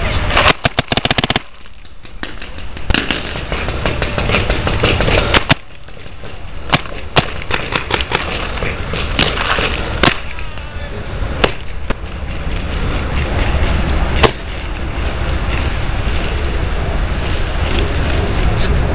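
Paintball markers firing: a rapid string of about ten shots in the first second and a half, then single sharp shots here and there through the rest, over a steady rushing noise.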